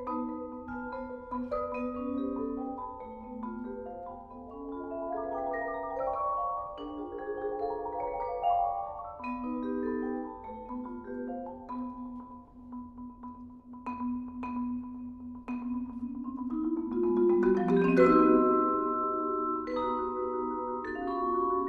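Two marimbas and a vibraphone playing contemporary chamber music: scattered mallet notes and held, overlapping tones. The music builds to its loudest point about eighteen seconds in.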